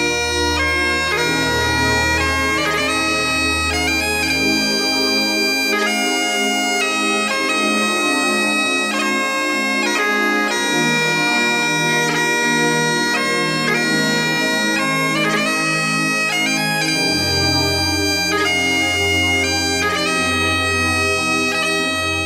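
Background music: a bagpipe tune of held notes over a low sustained note.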